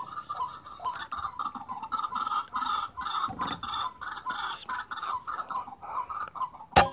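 Fast run of repeated clucking calls of a white-breasted waterhen (ruak-ruak). Near the end, a single sharp crack of an air rifle shot, which the shooter says went off without full power.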